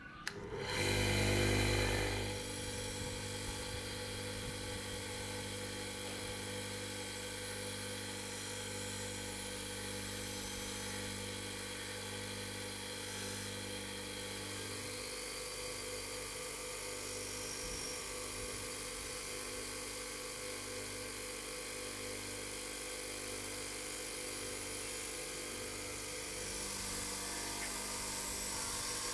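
Double-shaft bench grinder motor switched on. It is loudest for the first couple of seconds as it comes up to speed, then runs with a steady whine while a wire wheel on its shaft brushes rust off a small anvil pressed against it.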